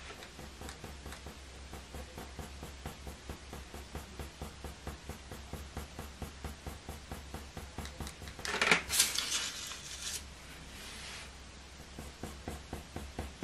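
Faber-Castell Polychromos coloured pencil scratching on hot-pressed watercolour paper in rapid, evenly repeated short strokes, the quick flicking hair strokes used to draw fur. A brief louder scrape comes about two-thirds of the way through.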